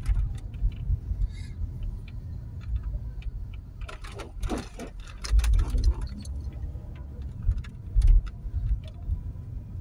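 Car driving along a town street: steady low rumble of road and engine noise with small clicks and rattles. A short sweeping sound comes about four seconds in.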